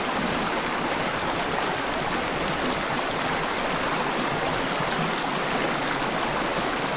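Mountain valley stream rushing steadily over rocks.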